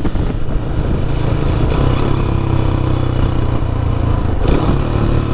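Small motorcycle engine running as the bike is ridden, a steady low drone.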